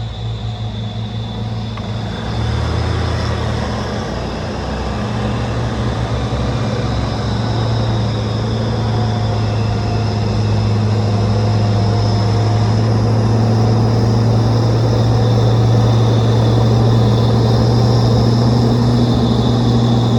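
Old truck's engine running at a steady speed with a constant low drone, growing gradually louder and cutting off suddenly at the very end.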